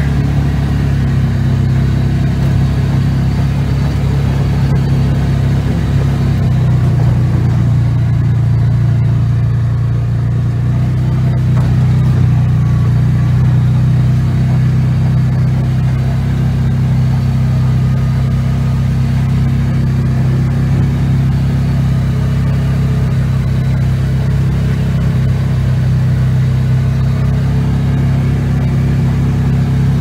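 Polaris side-by-side utility vehicle's engine running steadily as it drives along, a low even hum that drops slightly in pitch for a few seconds about a quarter of the way in.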